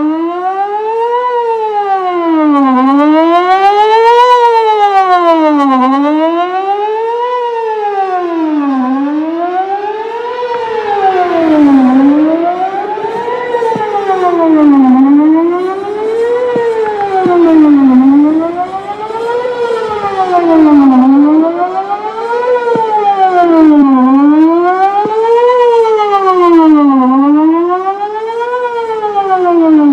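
Whelen WPS 4004 electronic outdoor warning siren sounding a test: a loud rising-and-falling wail that sweeps up and back down about every three seconds, swelling louder and softer as it goes.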